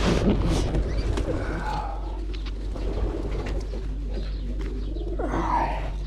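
Pigeons cooing, with scattered small clicks and scuffs around them.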